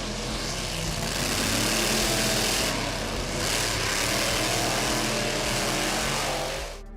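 An engine running steadily, with a hissing rush over it, that drops away sharply just before the end.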